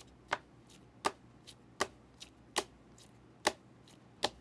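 Trading cards handled one after another, each setting-down or flip giving a sharp click, about one every three-quarters of a second with fainter ticks between.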